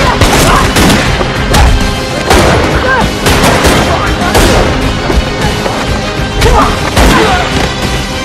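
Fight-scene soundtrack: a loud, driving film score with a rapid series of heavy punch and kick impact hits, and the fighters' short grunts and shouts.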